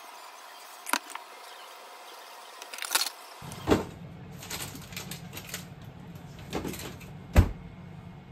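Kitchen handling sounds: chopsticks and plastic lunch boxes clicking and tapping as bento boxes are packed, over a faint hum. Partway through, a low rumbling background sets in with a few sharper knocks, the loudest near the end.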